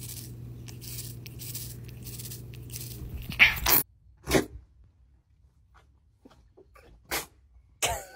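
A kitten licking a lollipop-style treat, soft wet clicks over a steady low hum. After a cut come several short, sharp puffs of breath, like coughs or snorts, from an alpaca and ponies at a gate, with quiet between them.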